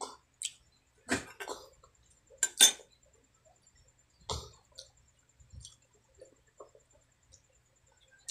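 Close-miked eating-table sounds: a scattering of short clicks and knocks from the eater's mouth and hands at the table. The loudest pair comes about two and a half seconds in, with fainter ticks later on.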